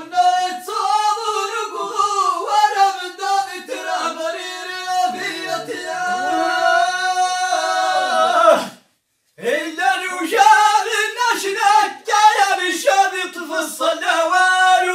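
Unaccompanied male singing of chanted Amazigh inshaden verse, with one long held note. The voice cuts off abruptly into silence for under a second, then the chant resumes.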